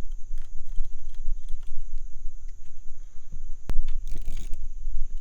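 Small metallic clicks and rattles of coil-pack bolts being fitted back into a Suzuki outboard, with a sharp click about three and a half seconds in and a short rattle just after. A low rumble runs underneath.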